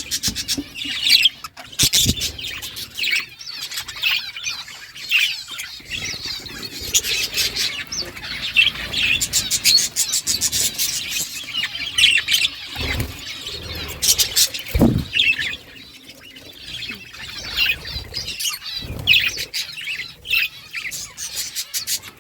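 A flock of budgerigars chirping and chattering continuously in rapid, overlapping calls, with a few short low thumps, the loudest about fifteen seconds in.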